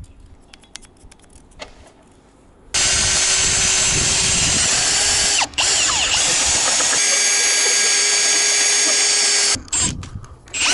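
Cordless drill boring an auger bit into a solid wood timber. Light handling clicks come first, then the drill runs steadily from about three seconds in, with a brief stop midway, and cuts off shortly before the end.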